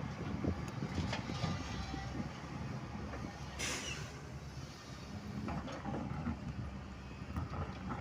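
Heavy diesel machinery running with a steady low rumble and some clatter, with a short hiss about three and a half seconds in.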